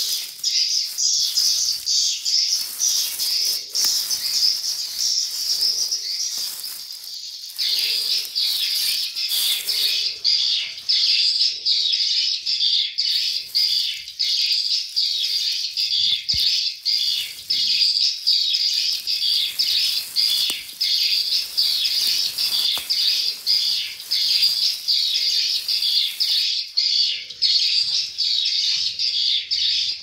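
Many nestlings chirping together, a dense, loud stream of rapid high notes that thins out briefly about six seconds in, then picks up again.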